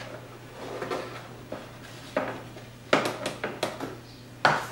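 A few sharp, irregular metallic clicks and clinks from hand tools on the 10 mm nuts holding the vent duct as they are snugged up, with a cluster about three seconds in, over a faint steady hum.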